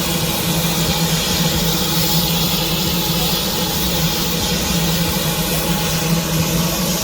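Antique steam traction engine running: a steady hiss with a constant low hum underneath, no break or change in level.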